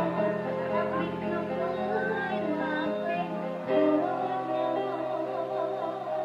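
Dangdut band music played live: a wavering melody line over held chords and steady bass notes.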